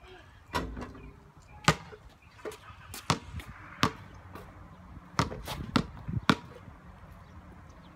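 Basketball shot striking the backboard, then the ball bouncing on a concrete driveway as a series of sharp separate thuds, with a quick run of dribbles about five seconds in.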